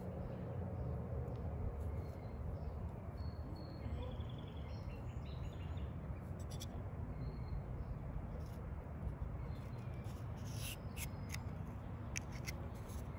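Outdoor ambience: a steady low rumble with birds calling faintly, a short run of chirps about four seconds in. Near the end come a few light clicks and taps as a cork holding a key is pushed into a tube.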